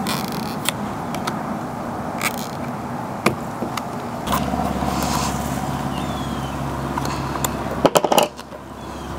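Scattered clicks and light scrapes of small parts being handled while a motorcycle windscreen is fitted, over steady outdoor background noise. A low steady hum sets in about four seconds in, and a quick run of loud clicks comes near the end.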